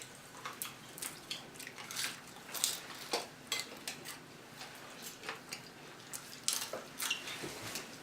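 Eating sounds: chewing and wet mouth clicks while eating fried chicken wings, a string of short, irregular crackles and smacks.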